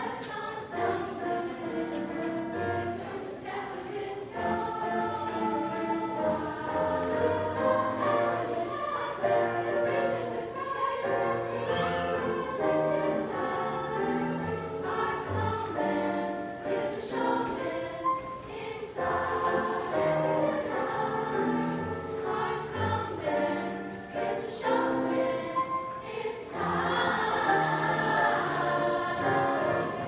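School varsity choir of mostly girls singing a Christmas song together, with low held notes beneath the voices; the singing grows fuller and louder near the end.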